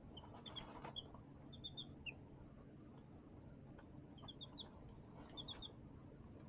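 Baby chicks peeping faintly: short high chirps in clusters of two to four, in four groups, with soft scratchy rustles about half a second in and again about five seconds in.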